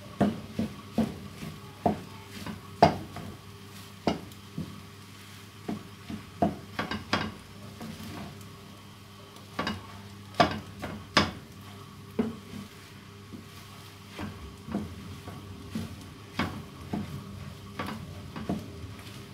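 Wooden spatula stirring and scraping food in a frying pan, with irregular sharp knocks against the pan, over a steady low hum.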